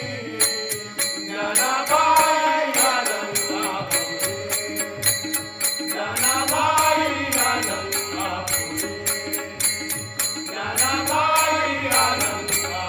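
A Marathi devotional abhang being sung, the voice rising and falling in long drawn-out phrases over a steady rhythm of small hand cymbals.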